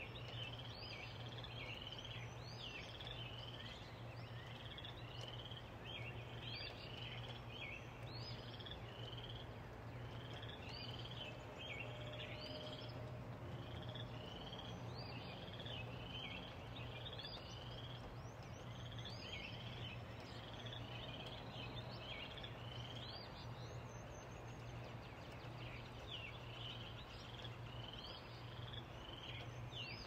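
Soft steady rain with a low hum underneath, and a continuous run of short high chirps from small animals, about two a second.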